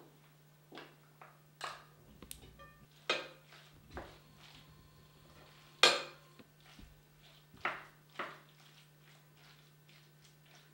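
Wooden spoon stirring chopped salad ingredients in a glass dish, knocking and scraping against the glass in about a dozen irregular clinks. The loudest clink comes about six seconds in.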